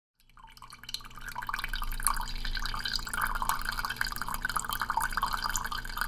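Coffee streaming into a ceramic mug: a continuous trickling, splashing pour with a low steady hum underneath, fading in over the first second.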